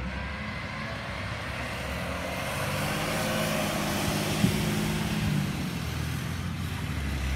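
Garbage truck's engine running as the truck pulls away and turns a corner, its sound building toward the middle. There is one sharp knock about four and a half seconds in.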